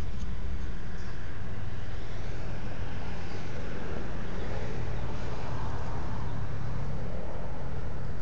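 Steady low rumble of background noise at an even level.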